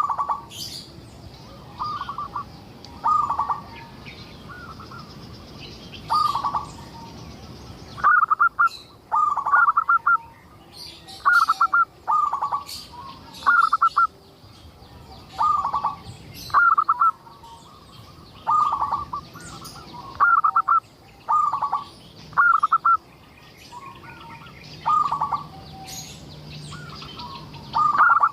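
Zebra dove (perkutut) in full, persistent song: short, rolling, stuttering coos, one every second or two. Fainter, higher chirps of other small birds sound behind it.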